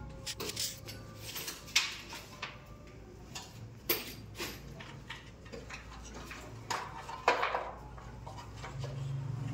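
Scattered clicks, knocks and short scrapes of hand tools and materials being handled on a wooden scaffold plank, with sharper knocks about two, four and seven seconds in.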